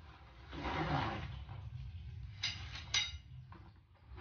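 Rustling of packaging as shoe-rack parts are pulled out of a cardboard box, then a few short clinks of the parts knocking together about two and a half to three seconds in.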